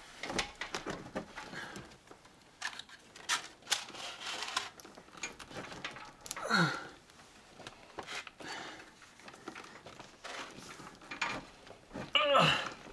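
Insulated electrical wires being handled and pulled through a bundle on a wooden wall: scattered rustles and small clicks of plastic-jacketed wire. A short falling vocal sound comes about halfway through, and twice more near the end.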